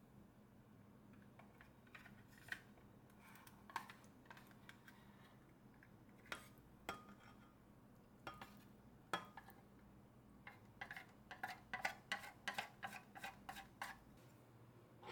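Scattered light clicks and taps of small hard objects, then a quick run of about a dozen clicks over the last few seconds.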